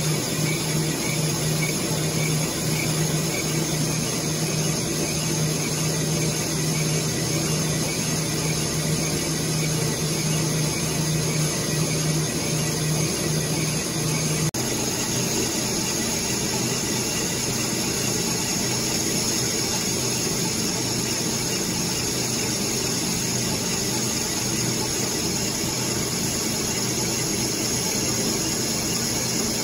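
Colchester Chipmaster lathe running steadily, its tool turning a cast iron flywheel. About halfway through, a steady low hum drops out suddenly while the lathe's running sound carries on.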